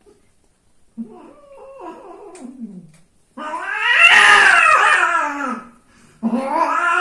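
Domestic cat caterwauling in long, drawn-out yowls during mating. A quieter yowl falling in pitch comes about a second in, then the loudest, rising and falling, and a third starts near the end.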